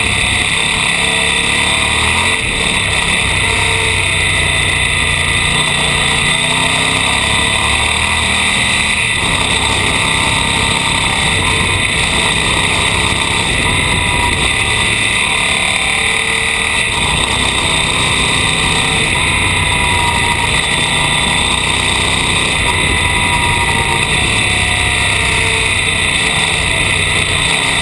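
Off-road motorcycle engine running under way on a dirt road, its pitch rising and falling as the rider works the throttle and gears, under a steady hiss.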